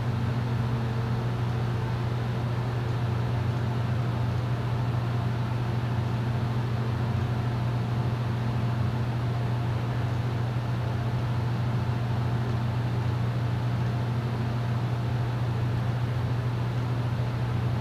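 Steady low mechanical hum of background machinery, even in level with no revving or change in pitch.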